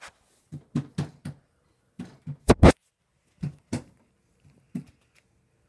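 Irregular knocks and thumps of a phone being handled and bumped against its microphone, the loudest pair about two and a half seconds in, stopping near the end.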